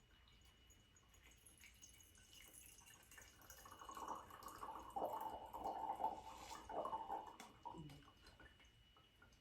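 Muddy water being poured into a paper-towel-lined plastic-cup funnel and trickling through into a glass jar. The pouring builds up about two seconds in, is loudest in the middle and stops about eight seconds in.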